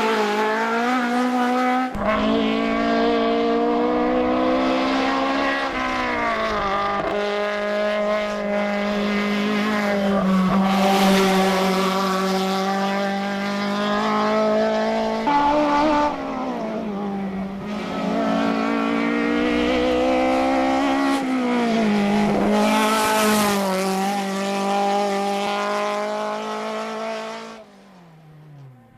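Ford Escort Mk2's Cosworth BDA twin-cam four-cylinder racing engine running hard. Its pitch climbs and then drops sharply several times as the driver changes gear and lifts off. The engine falls away near the end.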